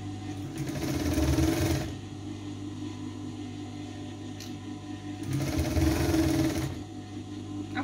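Domestic sewing machine stitching in two short runs of about a second and a half each, a few seconds apart: machine-sewing a seam that joins skirt panels.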